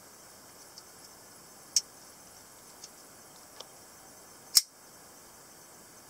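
Clicks of a semi-automatic (spring-assisted) one-hand folding knife worked by hand as its blade is closed and snapped open: a few light ticks, a sharp metallic click about a second and a half in, and the loudest snap about four and a half seconds in.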